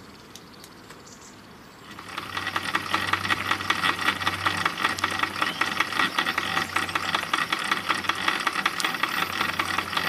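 RETROL SE-03 live-steam model mill engine running fast, a rapid, even clatter of exhaust beats and moving parts that starts about two seconds in, after a faint hiss.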